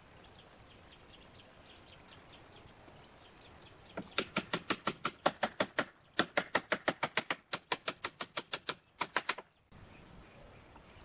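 A fast, even run of sharp clicks, about seven a second, begins about four seconds in and lasts some five seconds, with two brief breaks.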